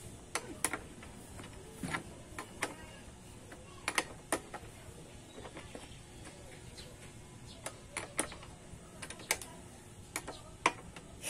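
Hand tools clicking and tapping on screws and bolts during a regulator rectifier swap on a motorcycle: a string of irregular light clicks, with a few louder ones about four seconds in and again near the end.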